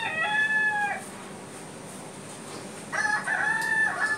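Rooster crowing twice: the tail of one long crow, then a second crow starting about three seconds in.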